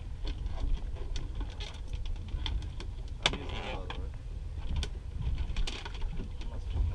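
Low steady rumble of wind and water around a small boat at rest. Scattered small clicks and knocks of gear on the fiberglass deck run through it, with one sharp knock about three seconds in.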